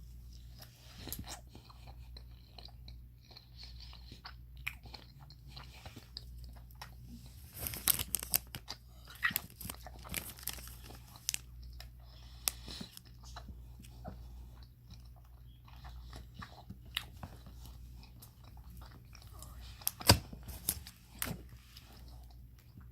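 A person chewing a strip of Japanese beef jerky snack: scattered wet clicks and crackles of chewing, louder in clusters about eight and ten seconds in and again near the end, over a faint steady low hum.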